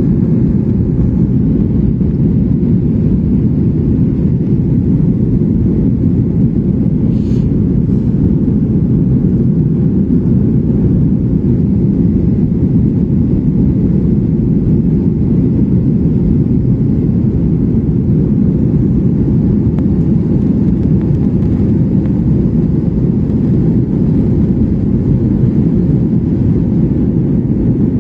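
Jet airliner cabin noise in flight: a steady, loud, deep rumble of engines and rushing air heard from a window seat.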